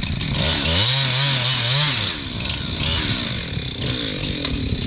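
Chainsaw running as it cuts into a tree, its engine pitch wavering up and down in the first two seconds, then steadier and a little quieter.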